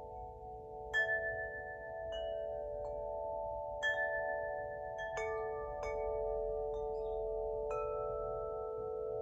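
Spring wind chime, tuned to the Wood element, struck about eight times at uneven intervals of roughly a second. Its bright metallic tones ring on and overlap into a sustained shimmering chord.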